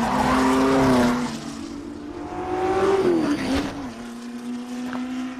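Car engine running hard. Its pitch holds for about a second, climbs steadily through the middle, dips just after three seconds as if through a gear change, then settles to a steady note.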